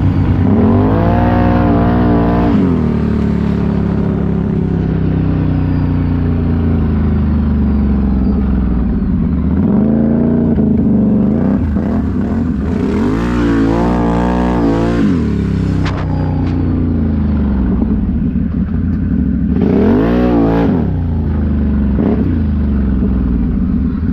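Can-Am Renegade ATV's V-twin engine under way, revved up and eased off in several bursts of throttle, its pitch climbing and falling back each time.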